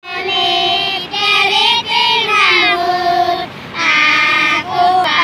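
A group of young children singing a song together in unison, in phrases of held notes with short breaks for breath between them.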